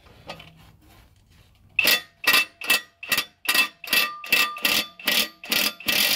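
Cordless impact wrench hammering at a very tight gearbox bolt in short bursts, about two and a half a second, starting about two seconds in.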